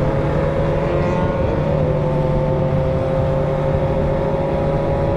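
Sport motorcycle engine with a straight-through 4-into-1 exhaust, running at a steady pitch that rises slightly while riding.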